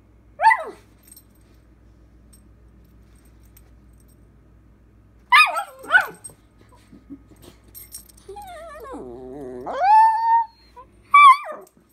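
Puggle–terrier mix puppy vocalising back at her owner: a short yip falling in pitch near the start, two more yips about five and six seconds in, then a long wavering howl-like grumble that rises and holds in pitch, and a final yip near the end.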